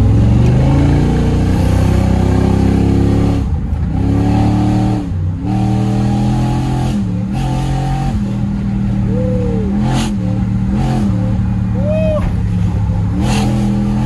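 LS-swapped Chevrolet Camaro Z28's V8 accelerating: the revs climb, break at gear changes about 3.5 and 5 seconds in, then settle into a steady cruise with small dips in throttle.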